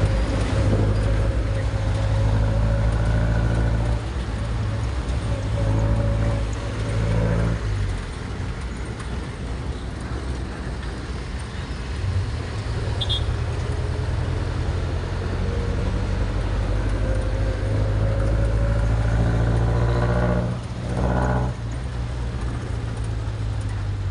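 Engine of a passenger vehicle heard from inside the cabin, running with a steady low drone and a whining tone. The pitch climbs at about 7 seconds and again at about 20 seconds, then falls away each time.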